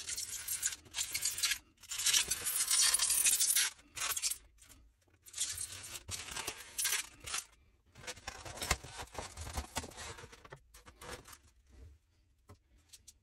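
Hobby knife slicing through a styrofoam sheet in a series of cutting strokes, each one to two seconds long with short pauses between, then a few faint crackles near the end.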